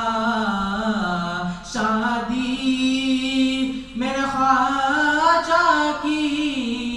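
A male voice singing an Urdu manqabat unaccompanied into a microphone, in long held, ornamented notes. There are three drawn-out phrases, with short breaths between them about two and four seconds in.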